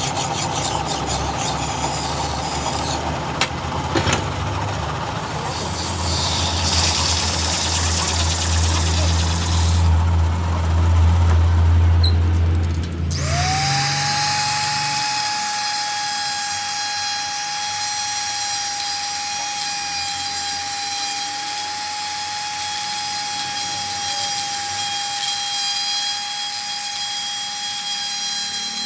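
Motor-driven machine tool working metal, running loudly with a low hum and rough cutting noise. About halfway through the sound changes to a steady high-pitched whine.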